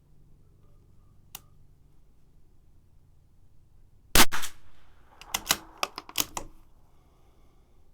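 A single .22 LR shot from a CZ 457 bolt-action rifle about four seconds in, the loudest sound, followed by a quick run of metallic clicks as the bolt is worked to eject the case and chamber the next round.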